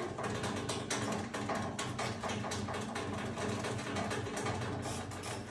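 Buttons on a Faber kitchen chimney's control panel being pressed, giving a run of irregular clicks and taps over a steady low hum.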